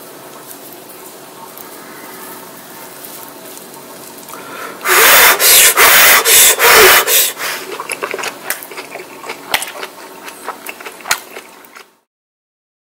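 A person blowing on hot food close to the microphone: a quick run of about seven loud breathy puffs over two seconds, after a faint steady hiss. Fainter crackling sounds follow and die away, then the sound cuts off.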